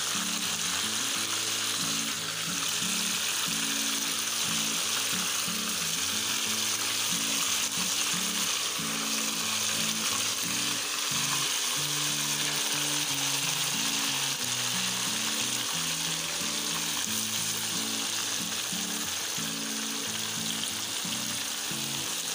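Marinated chicken pieces deep-frying in hot oil in a frying pan, a steady, even sizzle throughout. Soft background music with a low melody plays underneath.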